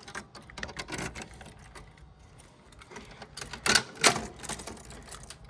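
A key working the reset lock of a fire alarm pull station: small metallic clicks and rattles, with a few sharper snaps about three and a half to four seconds in as the station is reset.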